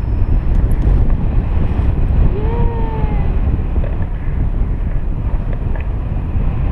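Wind buffeting the camera microphone in paragliding flight, a steady low rush of air. A brief pitched sound rises and falls once about two and a half seconds in.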